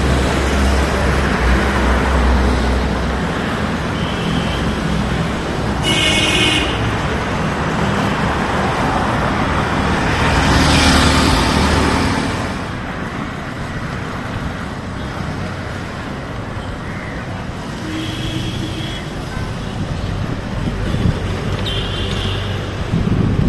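Road traffic noise with vehicle horns tooting briefly several times, the loudest about six seconds in.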